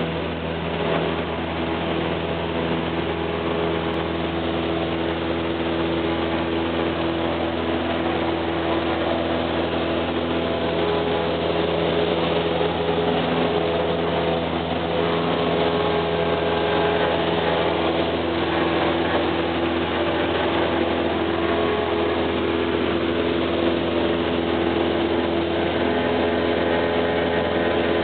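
Cessna 172's piston engine and propeller running steadily at full takeoff power through the takeoff roll and climb-out, heard from inside the cabin.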